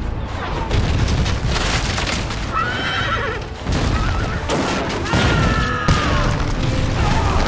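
Cannonball explosions and crashes from a bombardment, with long high screams, one about two and a half seconds in and a longer one about five seconds in.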